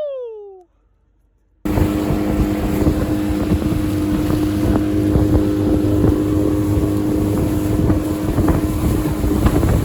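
Small boat's outboard motor running steadily under way, a constant hum with wind buffeting the microphone, starting abruptly about two seconds in.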